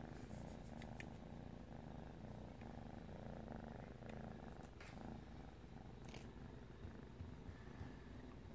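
A kitten purring softly and steadily, with a few faint clicks.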